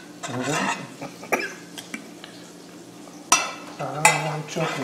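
Tomato sauce being spread across a glass baking dish, with soft stirring and scraping sounds, and frying sizzling in the background. Sharp knocks and clinks from the glass dish being shifted come about three and four seconds in.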